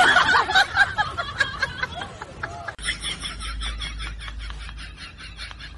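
Snickering laughter, then after a sudden change a low hum with fast, scratchy ticking noises.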